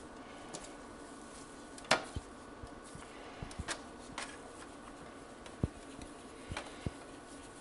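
Scattered soft taps and clicks of cookie dough being patted flat between the hands and set down on a metal baking sheet, over a faint steady hum. The sharpest click comes about two seconds in.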